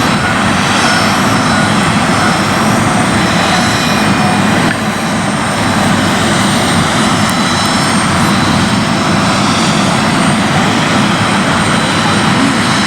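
Airliner engines running steadily: a loud, even rush with thin high whining tones over it, dipping briefly about five seconds in.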